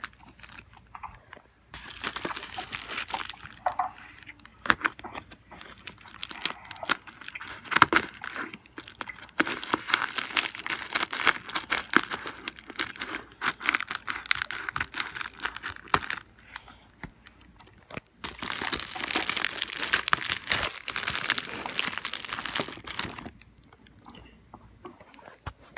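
Scissors cutting into a plastic bubble mailer, with the plastic crinkling, crunching and tearing as it is worked open, in long continuous stretches broken by a short pause.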